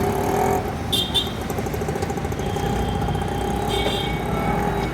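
Steady hum of a train at a railway station, with short high bird chirps about a second in and again near the end.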